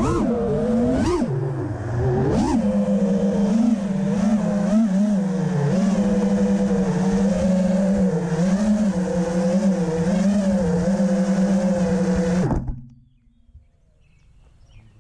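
6S FPV quadcopter's Ethix Mr. Steele Stout v2 brushless motors with HQ Ethix S3 props, a steady whine with a wavering pitch. Three quick throttle punches sweep the pitch sharply up in the first few seconds. The whine stops suddenly about twelve and a half seconds in.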